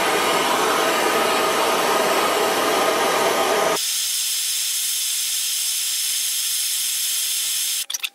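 Handheld gas blowtorch flame hissing steadily as it heats small steel grub screws for silver brazing. A little under four seconds in, the hiss thins and loses its low rumble, and it cuts off suddenly near the end.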